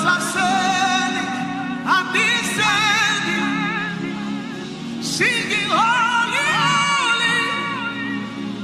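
Slow worship music: a solo voice sings long wordless phrases with heavy vibrato, sliding up into each phrase, over a steady sustained keyboard pad. New phrases begin about two and five seconds in.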